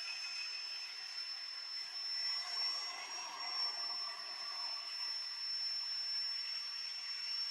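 Electric cut-off saw motor running at speed with no load: a steady high-pitched whine over a rushing noise that grows a little between about two and four seconds in.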